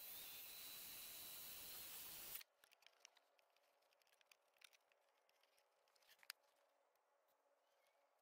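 Loud rustling and rubbing noise from an arm brushing right against the microphone for about two and a half seconds, which cuts off suddenly. After that it is near silence, with faint scattered clicks and light knocks as the test panel is handled.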